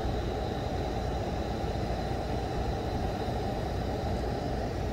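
Lit burner of a Coleman propane camp stove running steadily, a low, even rumble of the gas flame under a pan of melting paraffin wax.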